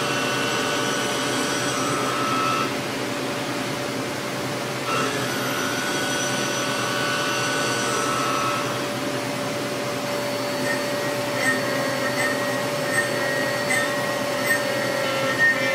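Five-axis CNC mill cutting a Ti-6Al-4V titanium blisk with a roughing ball end mill under flood coolant: a steady machining whine of several tones over the hiss of coolant spray. The cutting tones shift every few seconds as the cut changes. In the second half come short, regular ticks a little more than once a second.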